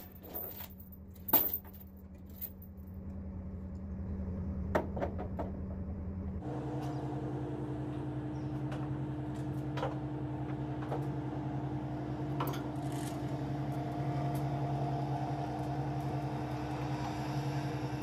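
Steady idling engine hum whose note changes and grows louder about six seconds in, with a few sharp metallic clinks from tie-down chains being handled.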